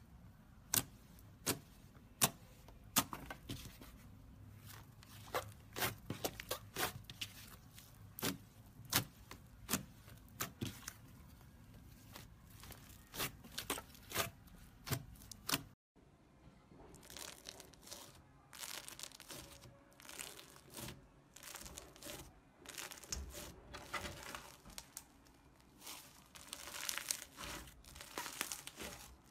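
Slime being squeezed and stretched by hand. Thick yellow slime gives separate sharp pops and clicks. After a cut a little over halfway, fluffy, grainy pink slime is pulled apart with a denser crinkling, tearing crackle.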